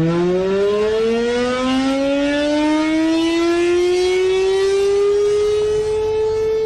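Civil defense siren winding up, its pitch rising steadily for about six seconds from a low growl and then holding a steady tone near the end.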